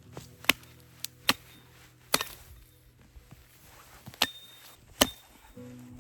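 Axe chopping wood: about six sharp, irregularly spaced strikes, some with a short ring. Soft background music with held notes plays underneath.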